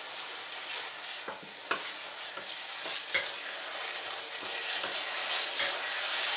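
Vegetables and turkey frying in a nonstick pan with sweet and sour sauce, sizzling steadily as a wooden spatula stirs them, with irregular scrapes and taps of the spatula against the pan. The sizzle grows a little louder over the second half.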